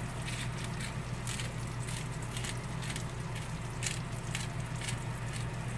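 Eggs frying in butter in a pan, sizzling with irregular small crackles and pops, over a steady low hum.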